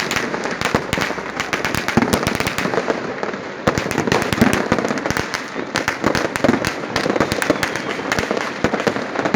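Many firecrackers and fireworks going off at once: a dense, unbroken crackle of overlapping pops and bangs.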